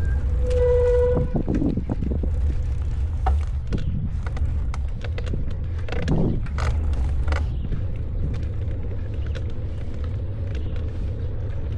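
Steady low rumble from riding a bicycle, with scattered clicks and rattles. A short, high squeal sounds about half a second in.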